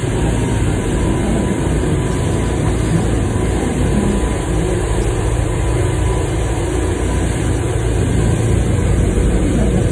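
Tour boat under way at speed: a steady engine drone mixed with the rush of the churning wake behind the stern.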